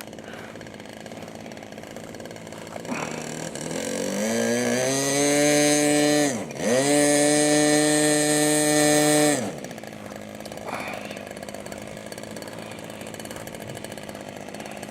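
OS LA 65 two-stroke glow engine on an RC plane idling, then opened up to full throttle about three seconds in, chopped for an instant near the middle and opened again, then throttled back to idle after about nine and a half seconds. The run-up clears out the engine so that it doesn't load up at idle.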